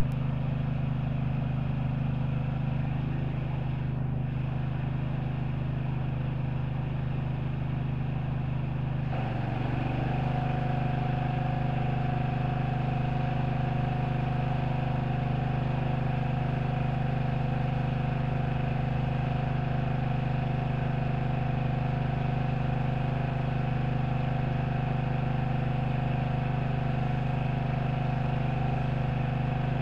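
An engine running steadily at an even speed. About nine seconds in the sound shifts: a hiss and a higher steady tone join it as the foam spraying starts.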